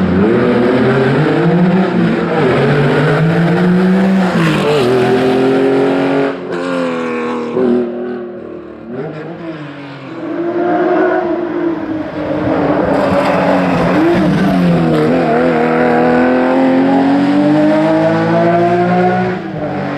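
Historic rally car engine revving hard, its pitch climbing and dropping again and again as it shifts through the gears. It eases off briefly about halfway, then accelerates hard again.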